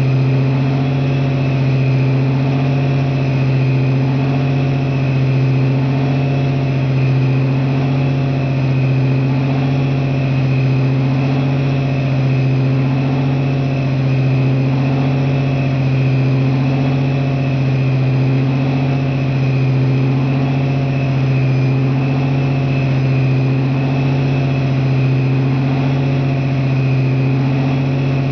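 Napier Deltic T9-29 'Baby Deltic' nine-cylinder opposed-piston two-stroke diesel, mounted in a Class 37 locomotive body, running steadily at a constant speed. It makes a loud, even drone with a strong low hum and a fainter high steady whine above it.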